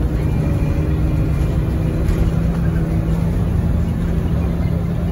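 City bus running along the road, heard from inside the passenger cabin: a steady low engine and drivetrain hum over road noise, with a faint higher whine that fades out about three seconds in.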